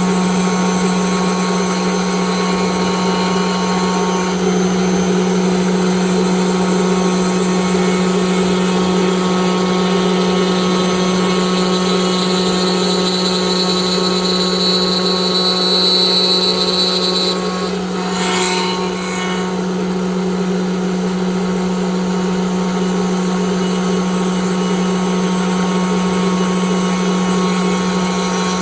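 Woodworking CNC router running with its HSD aggregate head, a loud, steady machine drone with a high whine over it. The whine strengthens past the middle and cuts off about two-thirds of the way through, with a brief change in the sound.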